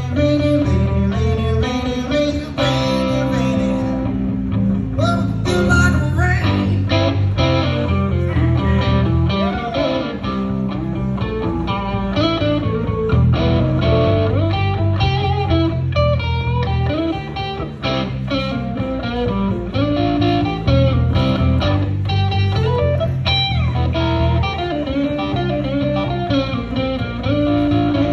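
Live blues band: an electric guitar plays quick single-note lead lines with bent notes over bass guitar and drums.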